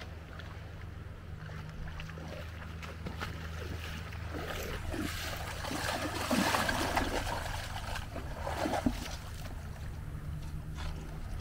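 Water splashing as a person wades through knee-deep sea water, dragging a bodyboard, loudest in the middle of the stretch, over a steady low hum.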